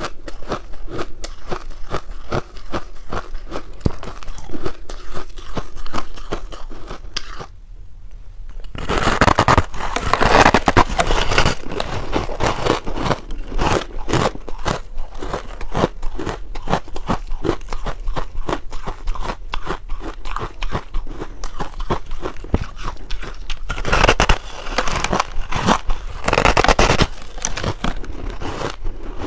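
Close-miked biting and chewing of a block of frozen pink ice cake: dense, crackling crunches of ice breaking between the teeth. The crunching breaks off briefly about eight seconds in, then comes back louder.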